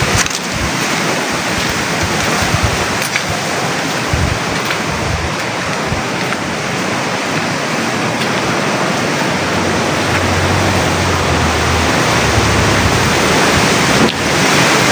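Steady heavy rain and wind of a tropical storm, a dense even hiss, with wind rumbling on the microphone from about ten to thirteen seconds in.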